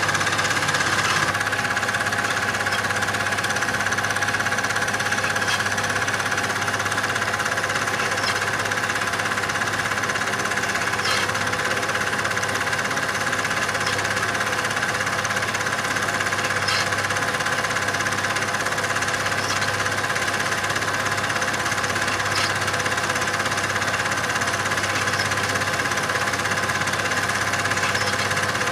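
Steady mechanical whirr and rattle of a cine film projector running, with no change in pitch and a faint click about every three seconds.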